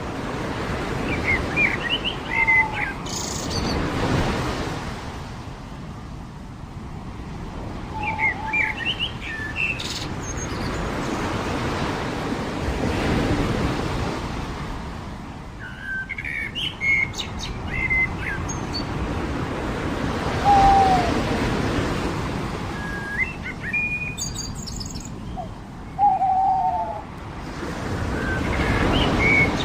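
Waves washing onto a beach in slow swells, with songbirds twittering in short bursts of quick chirps every few seconds and a few lower single whistled notes.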